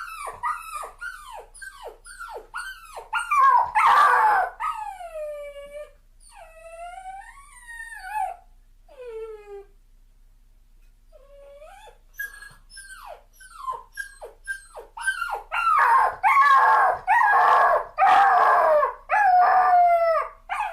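Puppy crying: quick runs of short, high, falling whimpers and yelps, longer wavering whines, a brief lull about halfway through, and loud, dense crying near the end.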